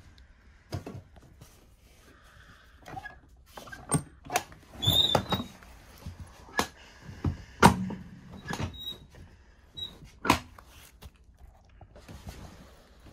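Clicks, knocks and short squeaks from a first-class train seat's recline mechanism being worked by hand. The loudest knocks come in a cluster between about four and eight seconds in, with one more near ten seconds.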